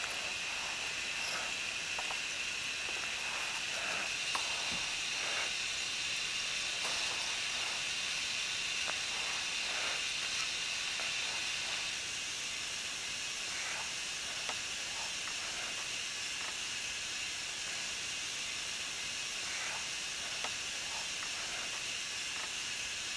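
Steady hiss of nitrogen gas blowing from a nitrogen plastic welder's heated tip, with the flow set low at about 10 litres per minute. It drops slightly in level about twelve seconds in.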